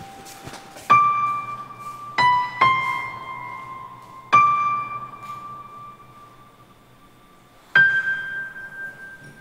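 Background score: slow, sparse piano, about five single notes, each struck and left to ring and fade.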